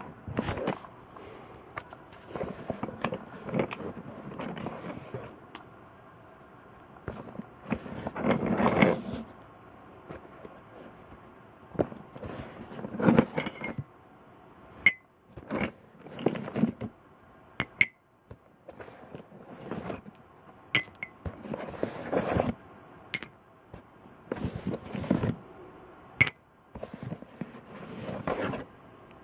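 Used steel connecting rods being handled and set down one by one, clinking and clanking against each other in short, irregular knocks, some ringing briefly, with scraping and rubbing of handling in between.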